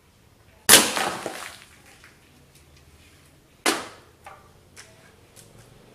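.22 (5.5 mm) pellet air rifle shots striking aluminium beer cans: a sharp crack with a clattering, ringing tail less than a second in, a second sharp crack near four seconds, then a few light clinks as knocked cans settle.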